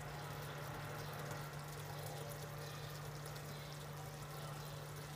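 Thick tomato-style sauce simmering in a pan on low heat: a soft, steady bubbling and crackling hiss over a steady low hum.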